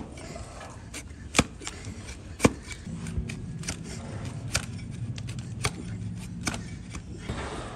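Flat hoof knife slicing through the hard horn of an overgrown donkey hoof: a series of sharp cracks, about one a second, as pieces of hoof split off under the blade.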